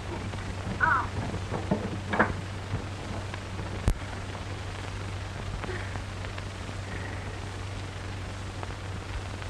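Hiss and steady low hum of an old film soundtrack, with a couple of brief voice sounds in the first two seconds and a single sharp click about four seconds in.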